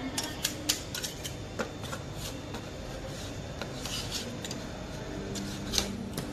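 Steel spatulas scraping and tapping on a frosted rolled-ice-cream cold plate as strawberry is chopped into the freezing cream base: a series of sharp metal clicks, several close together in the first two seconds and a loud one near the end, with scraping between them.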